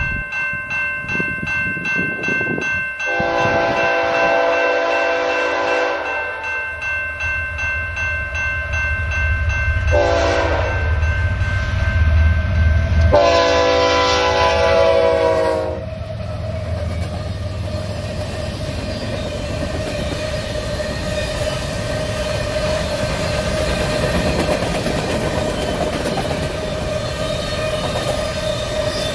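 Canadian Pacific GE ES44AC diesel locomotive sounding its multi-chime horn, a long blast, a short one and another long one, as the engines rumble past, loudest just before the last blast. The empty covered hopper cars then roll by with a steady noise of wheels on rail.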